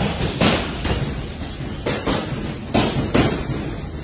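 Irregular heavy thuds, about five of them, each ringing briefly, over a steady low background.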